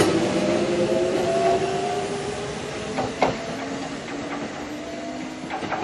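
Kintetsu Ikoma Line electric train pulling away from the platform, its motor whine slowly rising in pitch as it gathers speed. The wheels give a sharp clack at the start and two more about three seconds in. The sound fades as the train draws away.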